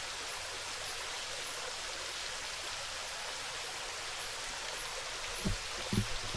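A forest stream running, a steady, even rush of water. In the last second, a few short, low thumps break in.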